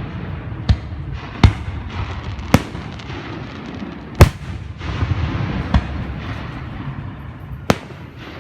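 Fireworks display: about six loud, sharp bangs at uneven intervals, with a continuous low rumble between them.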